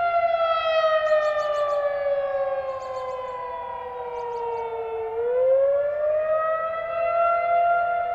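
Outdoor civil defense warning siren wailing during a test, sounding two tones together. Its pitch slides down over about five seconds, then climbs back up.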